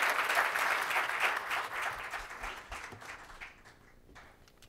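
Audience applause that thins out and dies away about three seconds in.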